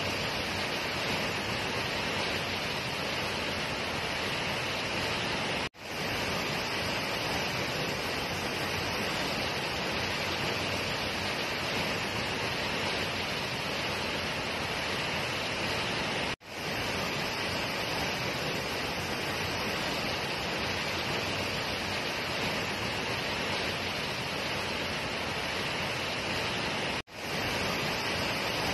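Tall waterfall pouring into a plunge pool: a steady, dense rush of water noise. Three times the sound cuts out abruptly and fades back in within half a second.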